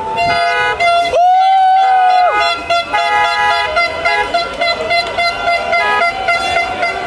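Several car horns honking at once, with many short toots overlapping and one long held blast about a second in. Shouting voices join in near the end.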